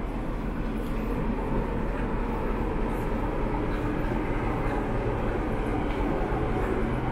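Passenger train coaches rolling past close by: a steady rumble of steel wheels on rail.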